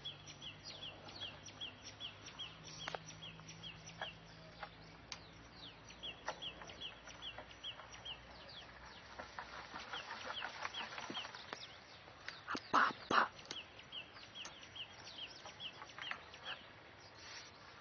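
Outdoor bird calls: a bird repeats quick series of short, high notes that each drop in pitch, several a second, in four bouts, and a louder double call sounds about two-thirds of the way through. Faint scattered clicks run under them.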